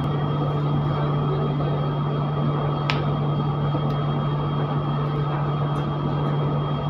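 Commercial kitchen exhaust hood fan running: a steady low hum with rushing air noise, and one sharp click about three seconds in.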